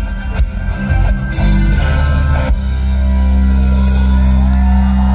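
Live rock band playing electric guitars and drums: a few drum hits over the guitars, then from about two seconds in the band holds one long sustained chord, like the close of a song.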